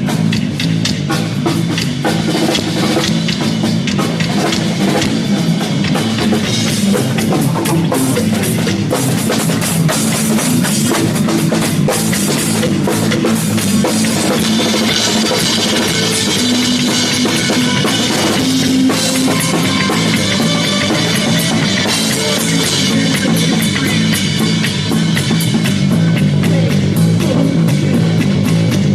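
Live rock band playing loud, with a pounding drum kit, bass and electric guitar.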